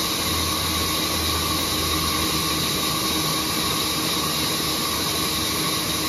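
Sawmill band saw running steadily with a constant hum and whine as a mango wood slab is fed through it.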